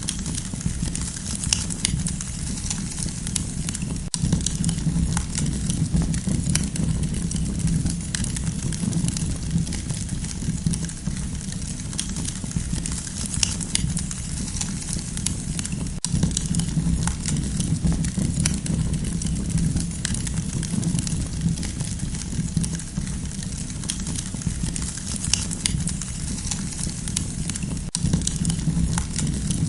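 Wood campfire burning, with frequent sharp crackles and pops over a steady low rush of flame.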